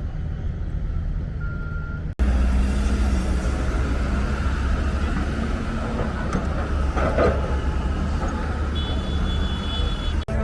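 Road traffic running steadily with a low engine rumble, breaking off abruptly about two seconds in and coming back louder. A short high electronic tone sounds near the end.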